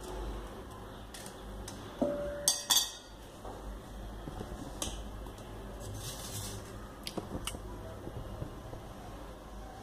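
Stainless steel bowls and a kitchen knife clinking and knocking against each other and the cutting board, a handful of separate sharp knocks. One is followed by a brief metallic ring, and the loudest come around three seconds in.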